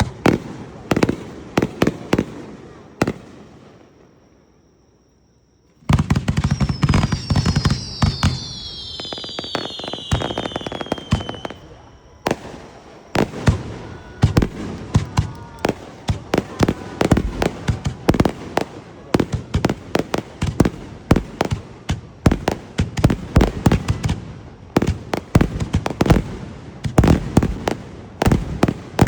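Fireworks display: rapid bangs and crackling bursts that die away to near quiet for a couple of seconds, then start again loudly about six seconds in. Several high whistles fall in pitch together over the next few seconds, and then a long run of dense bangs follows.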